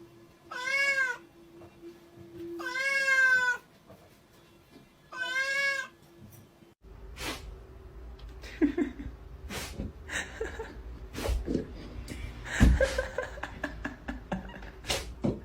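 A cat meowing three times, each call rising then falling in pitch. From about seven seconds in comes a run of clicks and knocks, with one louder thump near the end.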